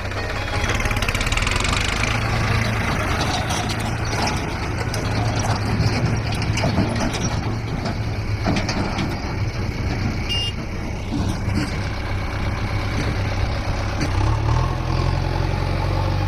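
Diesel engine of a JCB backhoe loader running steadily at work, its note rising near the end.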